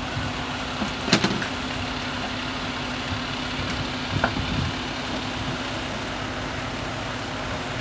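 Parked fire engine's engine idling with a steady hum, with a sharp knock about a second in and a lighter one about four seconds in.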